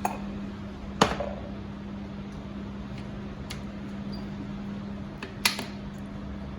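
A few sharp knocks of household items being handled, the loudest about a second in with a brief ring, over a steady low hum.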